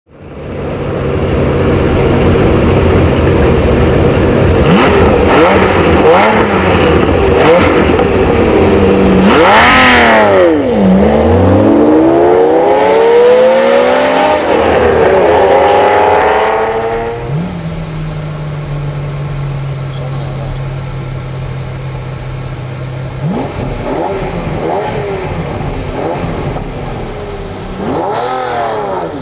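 Ferrari Testarossa flat-12 engines, one with a Fuch aftermarket exhaust, revving and then accelerating hard through the gears as the two cars race and pass close by, the pitch sweeping up and falling away. Later comes a quieter, steadier engine drone with a few rising revs, heard from inside a car's cabin.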